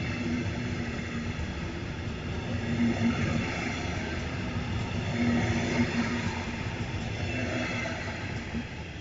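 DB Regio double-deck regional train rolling past along the platform, with a steady rumble of wheels on rail and a low hum. The noise fades as the last coach goes by near the end.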